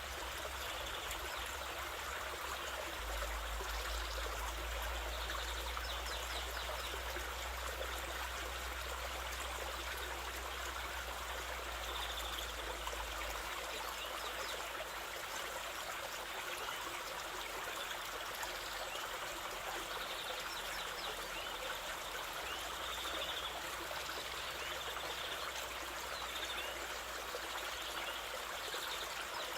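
Waterfall and stream water rushing and splashing in a steady, even wash, with a few faint, brief high chirps now and then.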